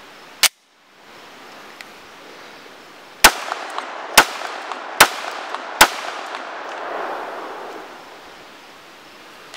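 Glock 19 Gen 4 9mm pistol firing outdoors. There is one shot about half a second in, then four shots in quick succession, a little under a second apart, and one more right at the end.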